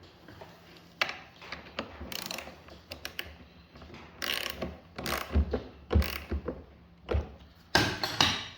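Irregular metallic clicks and knocks of a lawn mower wheel being refitted on its shaft, with a washer and tin-can shims fitted behind it to take out the wobble.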